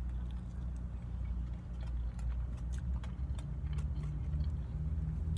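A steady low mechanical hum, like an idling engine, with scattered light clicks and rustles over it.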